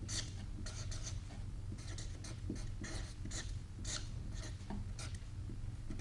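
Marker pen writing on paper: a run of short, scratchy strokes as letters are written, over a low steady hum.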